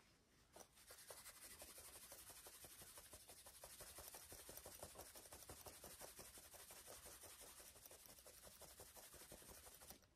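Scotch-Brite abrasive pad rubbed briskly by hand over a curly walnut and brass screwdriver handle: a faint, quick scratchy scrubbing of many short strokes. It starts about half a second in and stops near the end. This is a finishing pass to clear any file marks from the brass and the wood.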